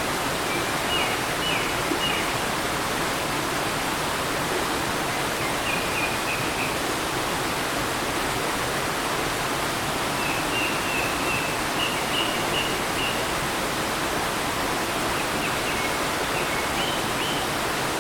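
Small mountain stream running steadily over rocks, with a songbird singing short high chirping phrases four times over the rushing water.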